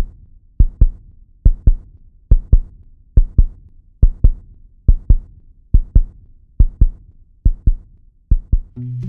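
A low heartbeat sound in the soundtrack: paired thumps repeating evenly, about seventy pairs a minute. Music with sustained low notes comes in near the end.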